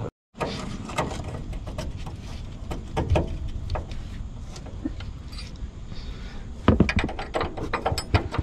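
Steel box-end wrenches clinking and scraping against the rusty bolt and nut of a truck's shock absorber mount as they are fitted on. There are irregular sharp clicks throughout, with a cluster of louder knocks about seven seconds in.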